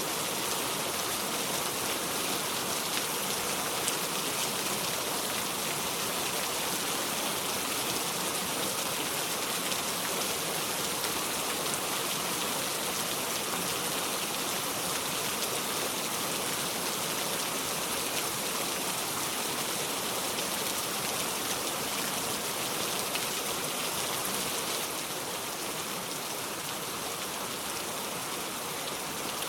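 Steady rain falling, an even wash of many small drops, getting a little quieter near the end.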